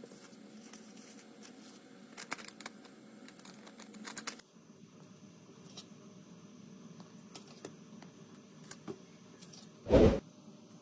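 Scattered light clicks and taps, as of small parts and tools being handled during a phone repair, coming in two quick clusters early on. Near the end comes one short, loud thump, much the loudest sound.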